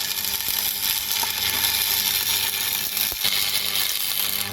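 Stick (arc) welder laying a bead: a steady crackling hiss from the arc that stops suddenly near the end as the arc is broken. The weld is locking a differential solid.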